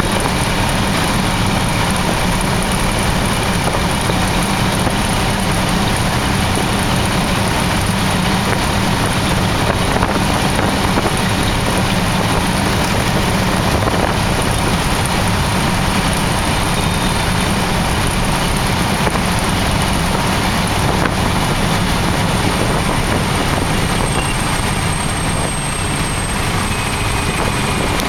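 Piper J-3 Cub's engine and propeller running steadily with rushing airflow, heard from inside the cockpit during the approach to a grass-strip landing. The sound eases slightly a few seconds before the end.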